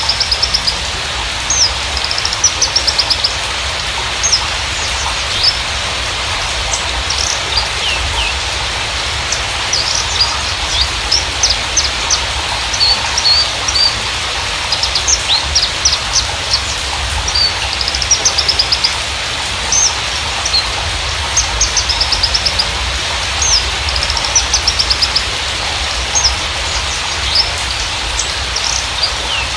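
Horsfield's bushlark (Javan race, Mirafra javanica parva) singing. The song comes in quick bursts of short high chirps and rapid trills with brief gaps between them, over a steady rain-like hiss.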